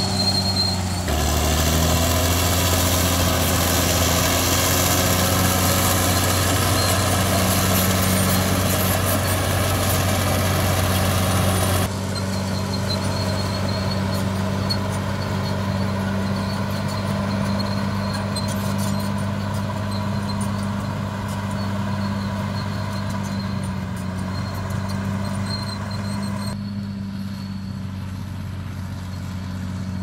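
Crawler bulldozer's diesel engine running under load with a steady low drone. About a second in, the sound jumps to a louder, rougher working noise. At about twelve seconds it drops abruptly to a quieter, more distant drone.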